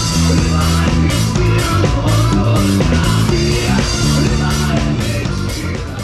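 Rock music played live on a drum kit with the band: drums over sustained low bass and guitar parts. The music begins to fade out near the end.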